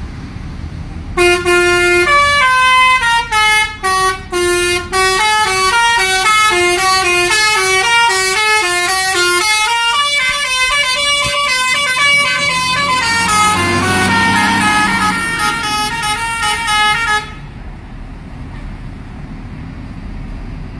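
Telolet basuri bus horn, a multi-note musical air horn, playing a fast stepping melody of short notes for about sixteen seconds, with three brief breaks in the first few seconds, then cutting off sharply. A low rumble runs underneath.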